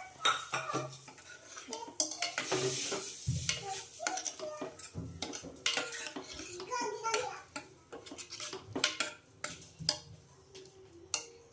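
A metal spoon stirring and scraping in a cooking pot, with repeated sharp clinks of metal on metal.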